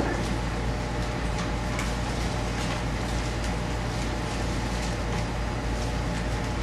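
Steady low hum and hiss of room background noise, with a few faint rustles.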